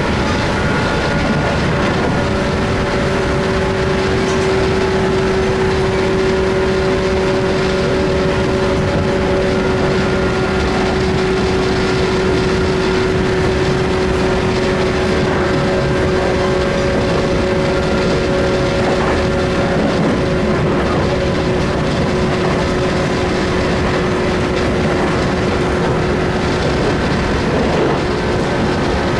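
Running noise inside a JR West 117 series electric train at speed: the steady whine of its MT54 traction motors and gears holds an even pitch over the continuous rumble of the wheels and running gear.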